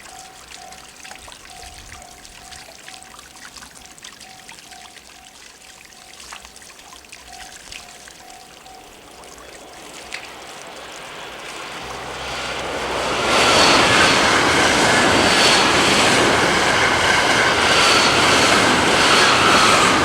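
A Japanese level-crossing warning bell dings steadily and stops about nine seconds in. Then an electric train comes up and passes at speed, loud, its wheels clacking over the rail joints and a motor whine dropping slightly in pitch as it goes by.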